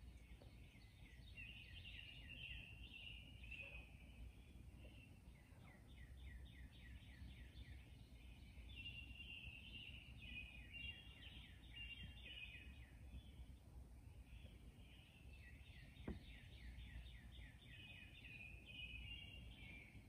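Faint songbird song: bouts of rapid, repeated short falling notes, with one sharp click about three-quarters of the way through.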